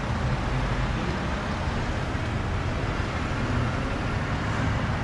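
Steady road traffic noise with a low, droning hum underneath.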